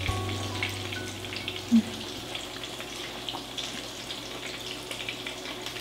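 Eggplant slices frying in oil in a skillet: a steady sizzle with scattered small crackles, and a brief low hum about two seconds in.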